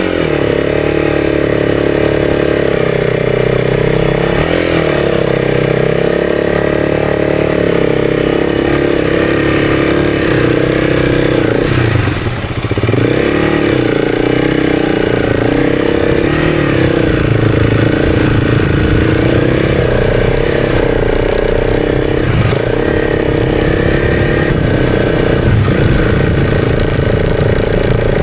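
Honda CRF300's single-cylinder engine running under heavy load as the bike is ridden through deep, soft sand, holding fairly steady revs. The revs dip briefly about twelve seconds in, then pick up again.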